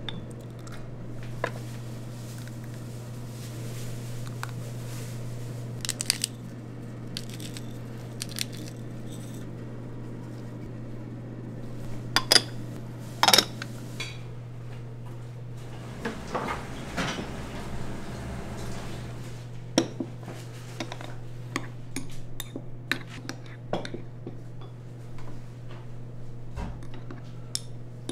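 Dishes and metal utensils clinking and knocking during food preparation, scattered irregularly, with a few louder knocks near the middle, over a steady low hum.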